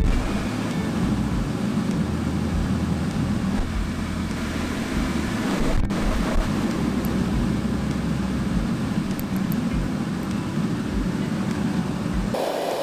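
Kyowa inverter sirocco fan running, a steady rush of blown air with a low rumble. Near the end the sound changes to a thinner, higher rush.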